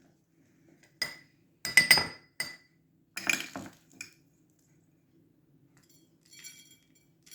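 A utensil clinking against a dish: about five sharp, ringing taps in the first four seconds, then a few fainter clinks near the end.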